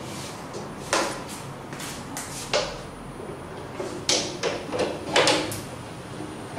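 Metal hardware of a DTG printer base being handled by hand: a string of about ten clicks and short scrapes, some with a brief ring.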